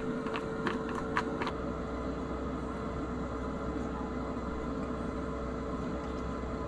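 A steady mechanical hum with one constant mid-pitched tone and a low rumble under it, like a fan or heater running in a small cabin. In the first second and a half, a few light clicks of chopsticks against a stainless steel bowl.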